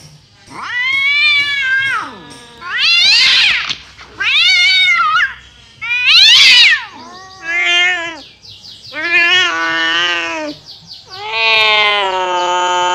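An angry feral cat yowling: seven drawn-out, wavering meows in a row, each rising and falling in pitch, with short pauses between them; the last, starting about eleven seconds in, is the longest and held almost level.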